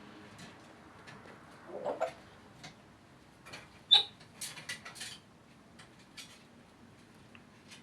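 African grey parrot making scattered sharp clicks, with a short rising vocal sound about two seconds in and a sharp high squeak about four seconds in, followed by a quick run of clicks.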